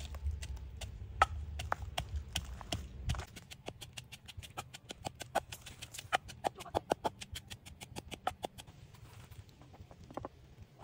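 Wooden pestle pounding garlic, red chili and salt in a wooden mortar: a rapid, even run of knocks, several a second. Near the end come a few separate knocks of a knife on a wooden cutting board.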